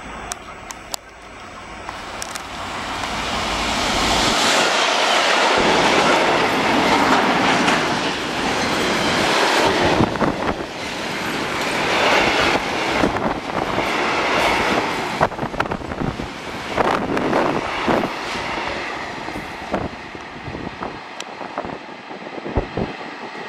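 A Class 66 diesel locomotive hauling a train of tank wagons passes close by: the engine and the wagons' wheels clatter and knock over the rail joints. The sound builds over the first few seconds, is loudest in the middle, and fades as the train draws away.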